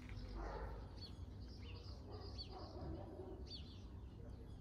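Small birds chirping: a few short high chirps spaced about a second apart, over a steady low hum.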